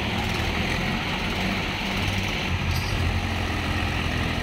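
Diesel tractor engines running under load as a chain tow pulls a Swaraj 735 FE tractor stuck in river water. The low engine note grows stronger about halfway through.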